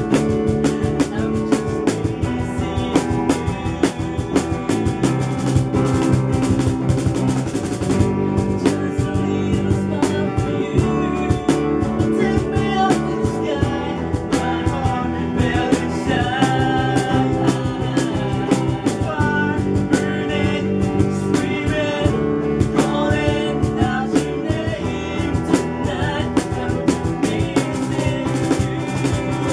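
A small band playing a song: a man singing lead over electric guitar, electric bass and a cajon keeping a steady beat.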